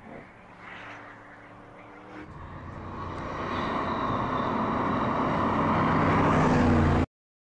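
2020 Audi RS6 Avant's twin-turbo 4.0-litre V8 engine running as the car approaches. It is faint at first, grows steadily louder from about two seconds in, and cuts off abruptly near the end.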